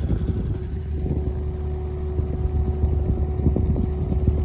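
Inboard diesel engine of a Horizon 1 river cruiser running steadily under way, a low rumble with a steady hum, with wind crackling and buffeting on the microphone.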